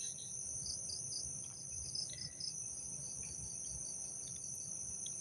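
Steady chorus of crickets and other insects: a constant high trill, with a row of faint short chirps over it through the middle.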